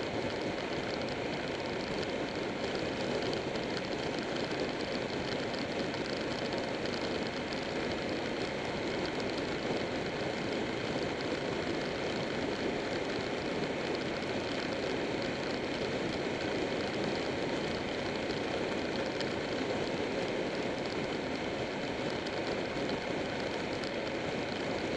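Buell 1125R motorcycle at riding speed: a steady rush of wind and road noise over the drone of its V-twin engine, holding even throughout.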